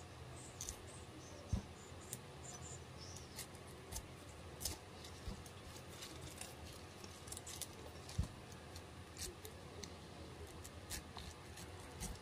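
Kitchen knife slicing the rind off a pineapple in strips: irregular faint scrapes and clicks, with a couple of sharper knocks of the blade on the cutting board.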